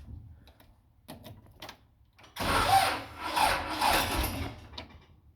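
Case 580 backhoe's engine cranked over by its starter for about two and a half seconds in a slow, pulsing grind, without firing. The battery is extremely dead.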